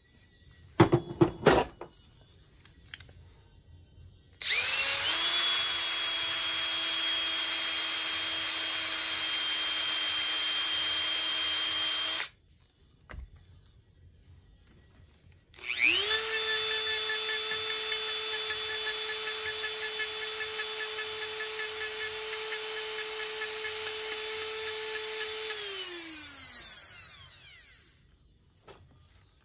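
Small electric drill running at a steady high speed in two long runs with a pause of a few seconds between them. The second run winds down with a falling pitch near the end. A few short knocks come just before the first run.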